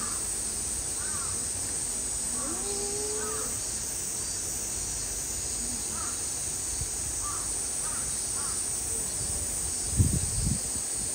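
Crows cawing in short calls, repeated throughout, over a steady high hiss. A low thump about ten seconds in.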